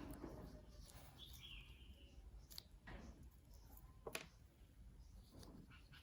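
Near silence with a few faint high chirps and two small sharp clicks, the second about four seconds in.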